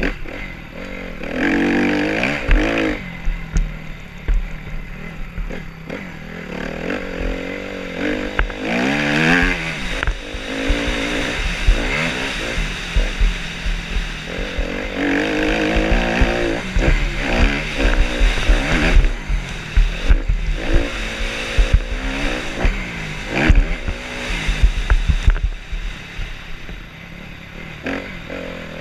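Dirt bike engine revving hard, its pitch climbing and dropping again and again as the rider accelerates and shifts through the gears, with wind buffeting the microphone as a low rumble.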